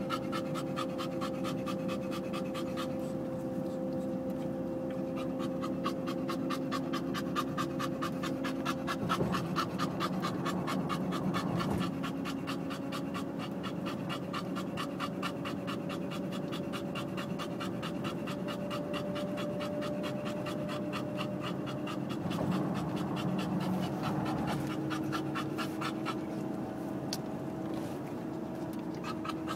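English bulldog panting hard and fast with its tongue out, a quick, even rhythm of breaths that keeps up throughout, over a steady hum inside a car.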